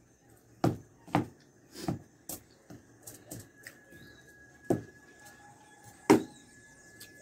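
A fork clicking and knocking against aluminium foil as it picks up loaded fries, about six sharp hits, the loudest about half a second in and near the end.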